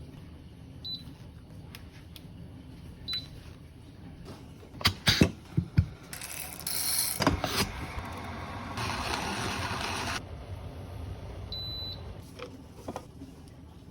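Coffee-making handling sounds: several sharp clicks and knocks of equipment, three short high beeps, and two stretches of hiss, one about six seconds in and one about nine seconds in.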